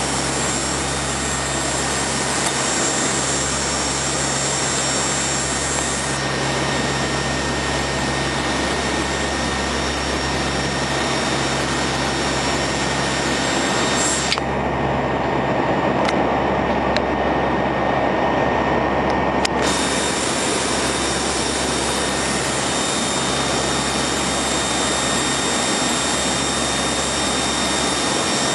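Steady cockpit noise of a Lockheed P-3 Orion's four Allison T56 turboprop engines and propellers in cruise, a dense even rush with a steady hum and whine. For about five seconds midway it turns abruptly duller, then comes back.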